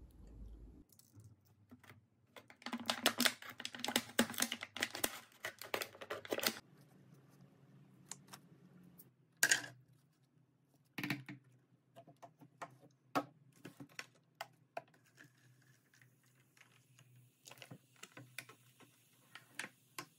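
Clicks, taps and crackling of a plastic effervescent-tablet tube and a cut-off plastic bottle being handled as a tablet is dropped into the bottle. There is a dense stretch of crackling a few seconds in, a sharp click about halfway, then scattered light ticks. A faint fizzing hiss comes in near the end as the tablet dissolves.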